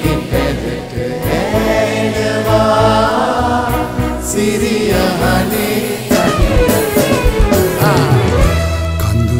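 Live band and orchestra of drum kit with cymbals, French horns, strings and keyboards playing a ballad, with singing voices over it.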